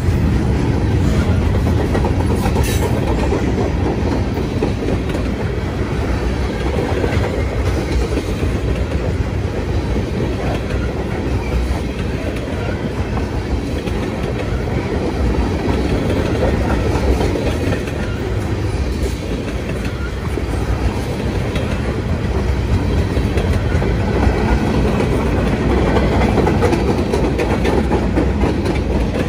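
Mixed freight train's cars rolling past: a steady rumble of steel wheels on the rails, with the clack of wheels over rail joints.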